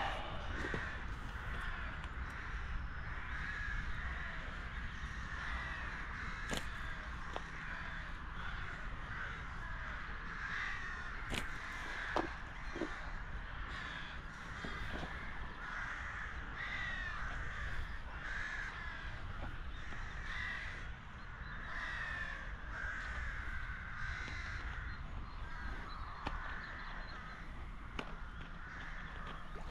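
Many birds calling over one another without a break, short overlapping calls, with wind rumbling on the microphone and a few sharp clicks.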